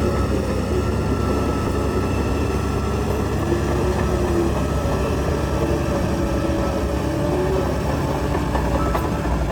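Crawler bulldozer working: its heavy diesel engine runs steadily while the steel tracks clatter and clank.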